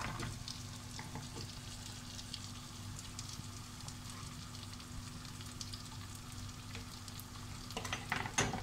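Diced vegetables sizzling steadily in hot oil in a pressure cooker, just tipped in to fry lightly. Near the end a metal ladle stirs and scrapes them in the pan.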